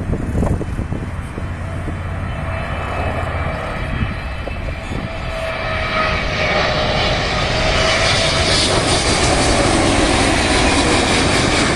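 Twin-engine widebody jet airliner on final approach with its landing gear down, its engines and airframe passing low overhead. A steady jet roar with a wavering whine grows louder and brighter from about halfway, at its loudest near the end.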